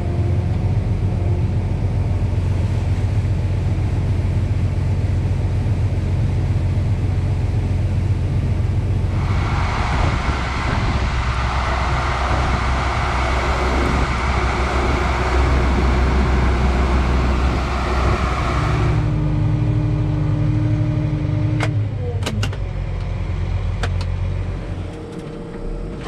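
Tractor engine running steadily under load, driving a grain cart's unloading auger as soybeans pour into a semi trailer. From about a third of the way in to about two-thirds, a loud rushing hiss joins it, starting and stopping abruptly, and a few sharp clicks come near the end.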